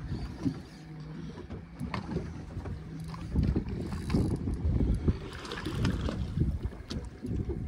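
Spinning reel cranked steadily as a hooked fish is reeled up to the boat, with a steady low hum and a few light clicks. About three seconds in, low, irregular rumbling of wind and water against the boat becomes louder.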